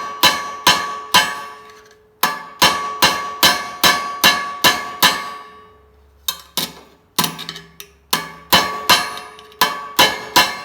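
Hammer blows on a sheet-steel patch piece, trapping a tuck to shrink and gather the metal. The blows come in runs of about two to three a second, each strike ringing briefly, with two short pauses.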